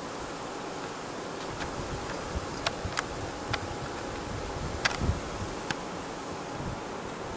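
A kitten playing with a feather wand toy on a fleece blanket: about six light clicks scattered through the middle, and soft thuds about five seconds in, over a steady hiss.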